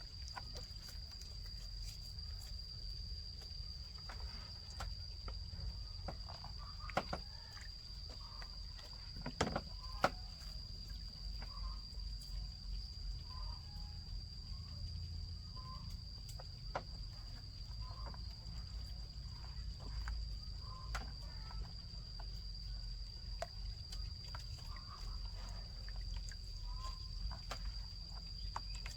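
Rural outdoor ambience: a steady high-pitched insect drone runs throughout over a low rumble, with scattered short knocks and brief faint animal or bird calls.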